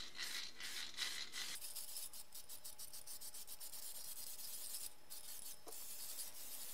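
Aerosol can of zinc primer spraying in a steady, faint hiss.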